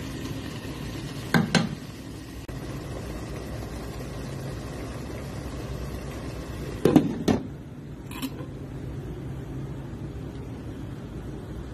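Kitchen clatter from a pot of simmering curry: a wooden spatula knocks on the pot a couple of times, then about seven seconds in a glass pot lid clatters as it is set on the pot, with a lighter click just after. A steady low background noise runs underneath.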